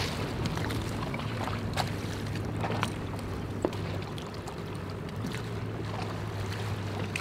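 Outboard motor idling with a steady low hum, under wind and choppy water, with a few light clicks.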